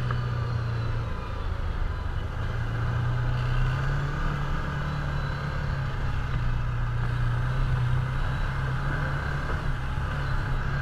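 Side-by-side UTV's engine running under way, heard from its own cab: a steady drone whose pitch rises and falls a little with the throttle.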